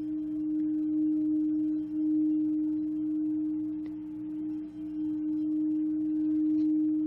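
Singing bowl sounding a sustained low tone with a fainter overtone above it, slowly swelling and dipping in loudness.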